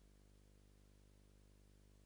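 Near silence: only a faint, steady low hum and hiss.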